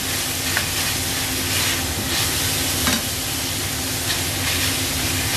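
Minced beef with tomato and chili sizzling in a stainless steel wok as a spatula stirs it, scraping the pan and knocking against it a few times.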